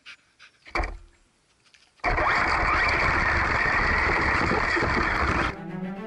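A single loud thump about a second in, then a Traxxas Slash 4x4 RC truck drives off over rough grass, heard from its onboard camera as a loud, even rushing of motor, drivetrain and bumping chassis. It cuts off suddenly near the end, where music with low bowed strings takes over.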